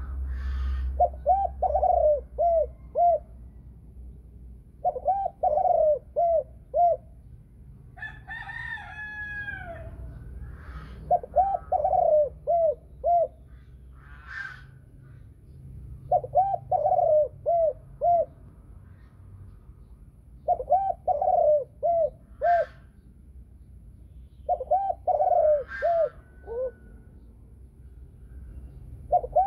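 Spotted dove (a pied Thai-bred hen) cooing in the deep 'thổ sấm' voice: six phrases of four or five short, rounded coos about every four to five seconds, each ending in two clear trailing notes. About eight seconds in there is a different, higher call with falling notes.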